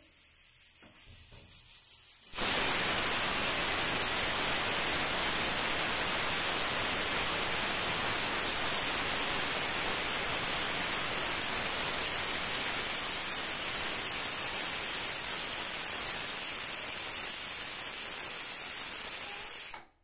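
Rasoiya aluminium pressure cooker's weighted valve whistling: a quiet sputtering hiss that pulses rapidly as the weight starts to lift, then about two seconds in a loud, steady jet of steam hissing out once full pressure is reached, cutting off sharply just before the end.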